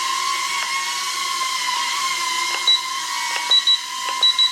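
Sanrock U61W mini quadcopter's motors and propellers running with a steady high whine while it flies. Over it the remote control gives short high beeps: once, then twice, then three times near the end, the beeps that confirm the low, medium and high speed settings.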